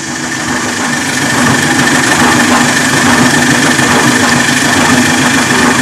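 Portable drum concrete mixer running, its motor running steadily while mortar churns in the turning drum. The sound is loud and steady, growing louder over the first second or so and then holding level.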